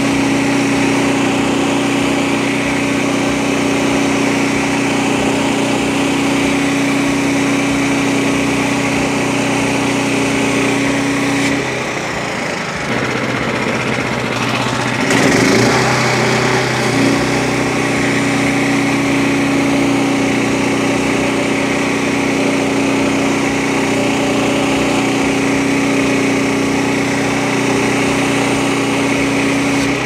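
Frontier OS23 portable bandsaw mill cutting a black cherry log: its 10 hp 306cc Briggs & Stratton engine runs steadily under load as the band blade saws through the wood. About twelve seconds in, the steady engine note breaks up for a few seconds, with a rising whine, before settling back.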